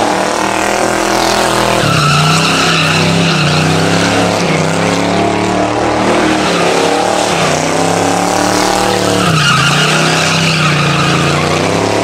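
Chevrolet Camaro engine revving hard, its pitch swinging up and down, while the rear tyres spin and squeal in a smoky burnout. The tyre squeal comes in strongly about two seconds in and again near ten seconds.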